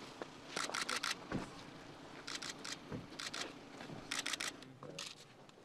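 Press camera shutters firing in four quick bursts of several clicks each, over a low steady hum.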